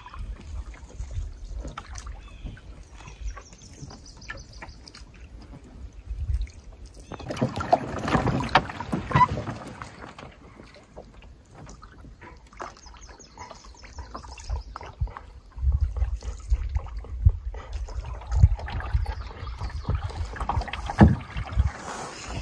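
Canoe being paddled: paddle strokes with water splashing and dripping off the blade, loudest a few seconds in, over a low wind rumble on the microphone. A faint high trill comes twice.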